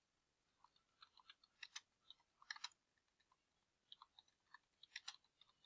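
Faint, irregular clicks of computer keyboard keys as a short phrase is typed.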